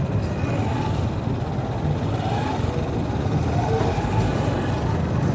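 Slow motorcycle and tricycle traffic heard from a motorcycle: a steady low engine rumble from the filming bike and the motorcycle-sidecar tricycles close around it.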